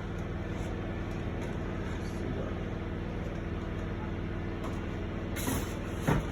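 A steady low mechanical or electrical hum, with two short knocks near the end.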